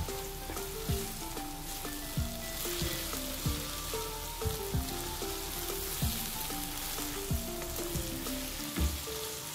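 Beef mince and green onions sizzling in an oiled non-stick wok as a slotted spatula stirs through them. Background music plays over it, with a melody and a steady low beat that gives the loudest moments.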